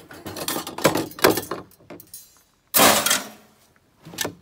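Metal racks clattering as they are handled and set down: a run of rattling knocks in the first second and a half, a loud crash just under three seconds in, and a smaller knock near the end.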